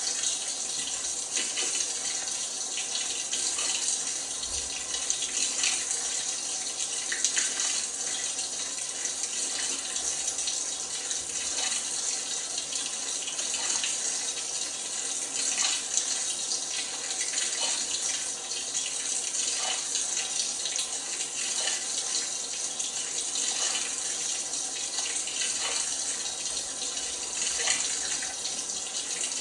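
LG washing machine taking in water: a steady hiss of water pouring into the drum, with small splashes scattered through it.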